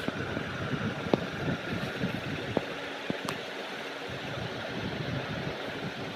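Steady mechanical hum and hiss of room noise, with a few sharp clicks scattered through it.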